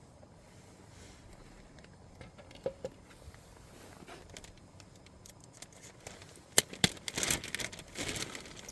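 Crinkling and rustling handling noise with sharp clicks, faint at first and getting loud and busy in the last two seconds.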